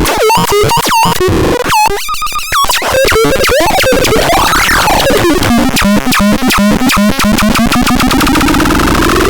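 Electronic synthesizer making harsh, noisy electronic tones. In the first few seconds it plays a string of quick falling chirps, then a fast pulsing buzz with pitches that swoop up and down.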